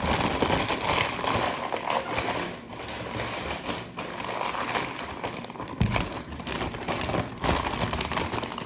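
Store packaging being torn and handled open by hand: irregular rustling and crinkling with scattered clicks, and a single duller knock about six seconds in.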